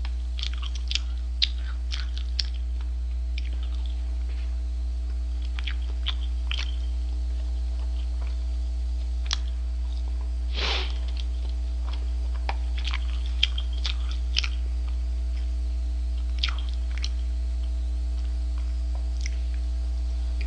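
A person chewing a mouthful of burger with the mouth closed, with scattered wet mouth clicks and smacks and a brief rush of noise about halfway through, over a steady low electrical hum.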